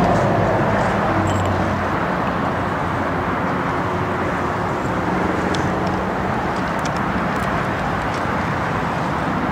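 Steady outdoor background noise, an even rumble and hiss at constant level, with a few faint clicks.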